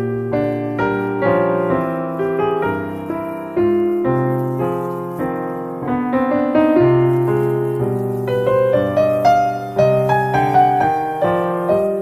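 Background piano music: a melody of separate notes over lower chords, each note struck and then fading.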